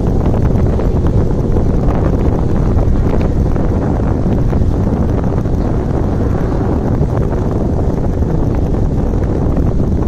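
Strong wind buffeting the microphone: a loud, steady, low rumbling noise.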